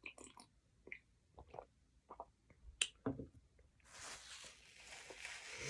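Close-up mouth sounds of a person chewing a bite of a chicken sandwich: a string of short, wet clicks and smacks. About four seconds in they give way to a hiss lasting about two seconds.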